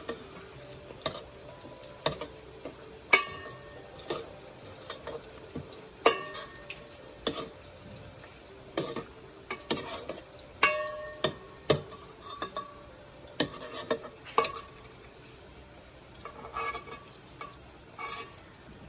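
Metal spoon clinking and scraping against a metal pot while fried pheni are turned in sugar syrup: irregular sharp clinks, roughly one a second, each with a short ring.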